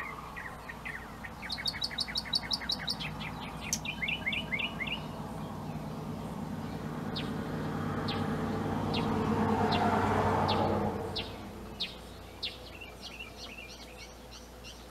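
A small bird chirping: a quick trill of rapid high chirps about two seconds in, then a run of down-slurred notes, then single sharp chirps about once a second. Behind them a broad rushing sound swells up, loudest about ten seconds in, and fades away.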